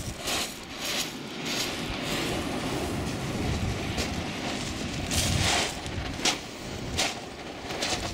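Wind buffeting the microphone as an uneven low rumble, with crunching footsteps on shingle pebbles, quick in the first couple of seconds and scattered after that.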